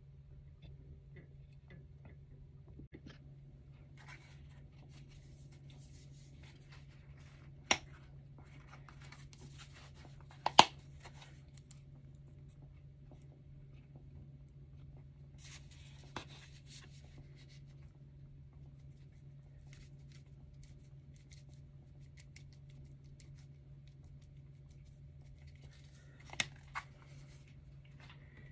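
Cookware and a spice jar being handled over a hot plate: light rustling and a few sharp clicks and knocks, the loudest about ten seconds in, over a steady low hum.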